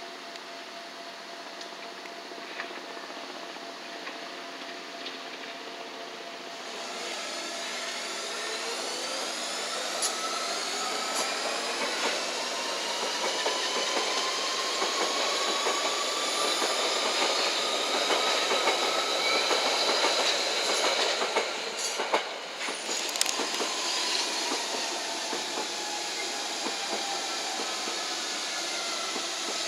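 A quieter steady hum gives way, about six seconds in, to a London Underground 1992 Stock Central Line train running past. Its traction motors whine in several tones that rise and later fall, with clicks from the wheels over the rails.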